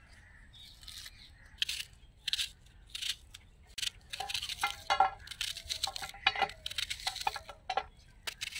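A knife cutting through a red onion held in the hand, in quick irregular crisp cuts, with diced pieces clinking as they drop onto a steel plate. The cutting starts about a second and a half in.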